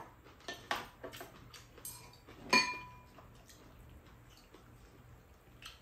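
Metal spoons and chopsticks clinking against ceramic bowls and a pan while eating: a few light clinks in the first three seconds, the loudest about two and a half seconds in with a short ring, then only a faint tap near the end.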